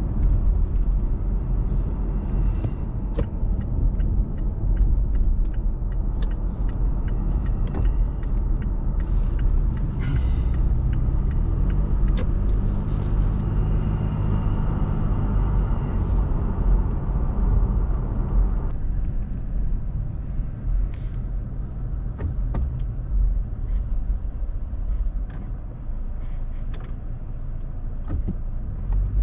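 Car driving on a road, heard from inside the cabin: a steady low rumble of engine and tyres. The higher road hiss drops off suddenly about two-thirds of the way through.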